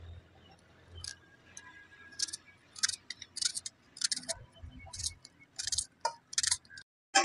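Kitchen knife slicing a raw onion held in the hand, a short crisp crunch with each cut. The cuts are sparse at first, then come about two to three a second after about two seconds.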